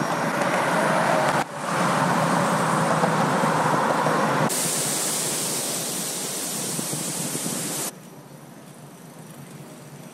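Rushing wind noise on the camera microphone of a rider on an electric unicycle, spliced from several clips, so it changes abruptly about one and a half, four and a half and eight seconds in. The middle stretch is the loudest and hissiest; the last stretch is much quieter.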